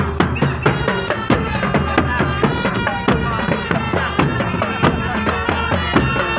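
Marching drum band playing: a steady beat of drum strokes under sustained melody notes.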